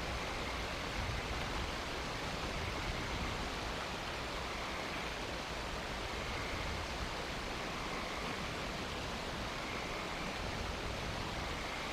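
Steady, even outdoor hiss picked up by the nest camera's microphone, with a faint high tone that swells and fades a few times.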